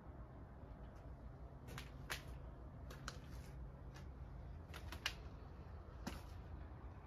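Faint, irregular sharp clicks and snaps, about nine of them, spread over a few seconds above a low background rumble.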